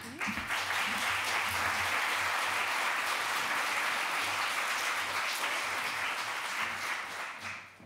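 Audience applauding, a steady mass of clapping that dies away near the end.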